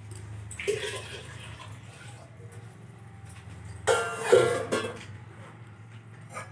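Steel kitchen utensil clattering and ringing against the counter about four seconds in, the loudest sound. A brief splash of poured water comes near the start, over a low steady hum.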